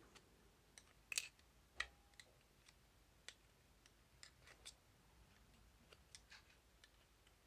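Faint, scattered light clicks and taps of small metal parts being handled as an exhaust fan motor's shaft and bushes are checked, the loudest about a second in.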